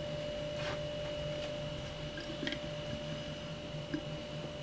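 Quiet room tone with a steady electrical hum and a few faint, soft taps of a glass jar being handled.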